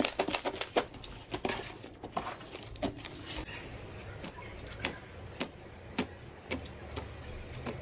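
Slime being squeezed and poked by hand, giving sticky clicks and pops: a quick run at first that thins out to single pops about every half second.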